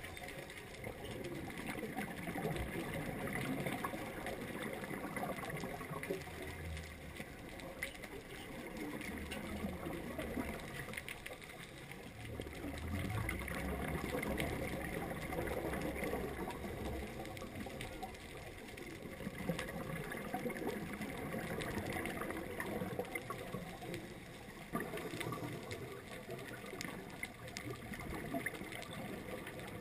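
Underwater sound heard through a camera's waterproof housing: a steady hiss with a fine crackle of clicks, and bouts of low bubbling, typical of a scuba diver's exhaled regulator bubbles.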